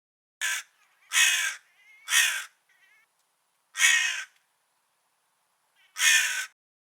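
Crow cawing: five harsh caws, the first one short, the last after a longer pause.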